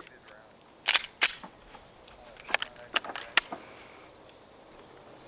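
A handgun being loaded after the lock-and-load command: about five short, sharp clicks and clacks, the two loudest about a second in and lighter ones a couple of seconds later. Crickets chirp steadily in the background.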